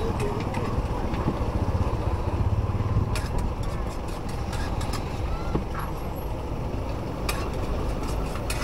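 Steady low rumble of motor traffic, swelling as a heavy vehicle passes about two to three seconds in, with a few sharp clicks and clatter on top.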